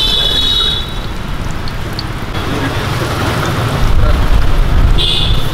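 Battered green chillies (mirchi bajji) deep-frying in a kadai of hot oil, with a steady sizzle. A low rumble grows louder about four seconds in, and a brief high-pitched whine sounds at the start and again about a second before the end.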